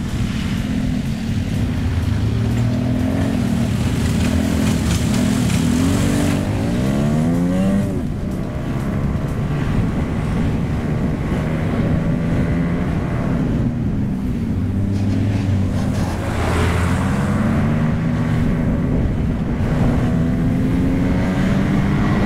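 Motorcycle engine heard from the rider's seat while riding, its pitch stepping up and down with throttle and gear changes. It climbs steeply twice, around seven and sixteen seconds in.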